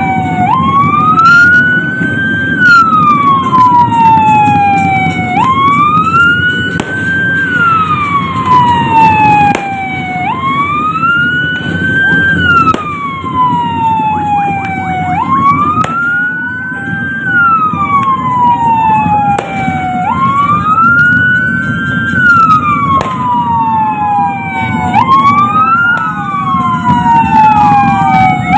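Siren wailing, rising quickly over about a second and a half and falling slowly over about three and a half, repeating roughly every five seconds; near the end a second wail overlaps out of step. It is the Indonesian Independence Day commemoration siren, heard over a steady low rumble.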